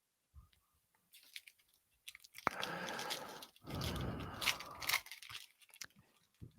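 A trading card pack's wrapper being torn open and crinkled, in two crackly stretches of about a second and a half each, with a few light clicks and taps around them.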